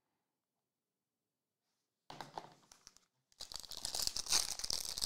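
Trading card packaging being torn open and crinkled by hand. It starts about two seconds in and comes back louder after a short pause.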